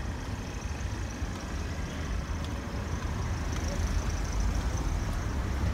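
City street traffic noise: a steady low rumble of vehicles on the road.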